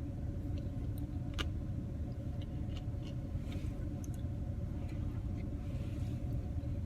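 Idling vehicle engine heard from inside the cab: a steady low rumble with a faint even hum, and a few light clicks on top.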